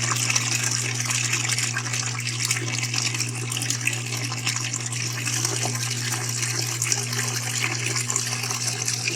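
Water running steadily from a tap in a strong stream, with a steady low hum underneath.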